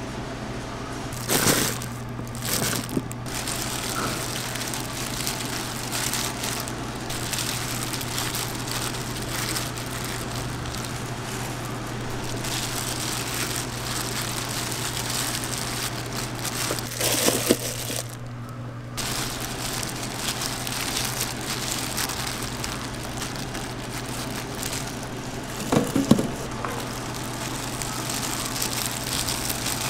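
Steady low machine hum under a constant rustling, crinkling noise as plastic-gloved hands scatter toppings and shredded cheese onto a pizza, with a few brief knocks near the start, around the middle and toward the end.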